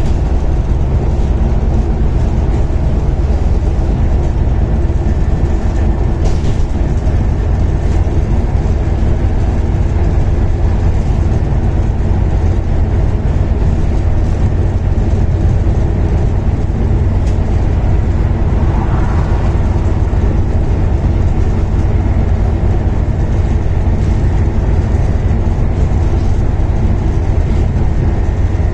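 Volvo B7TL double-decker bus's six-cylinder diesel engine running steadily under hard load: a deep continuous rumble with a faint high turbocharger whine over it.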